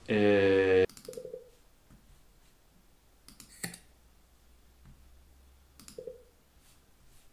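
A short, loud buzzing tone that cuts off abruptly within the first second, then a few isolated clicks at a computer, spaced a couple of seconds apart.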